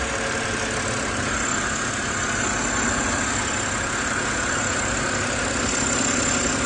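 BMW N52 straight-six engine idling on a winter cold start with a fast ticking over the steady engine note; the owner wonders whether it is rod knock or hydraulic lifter tick.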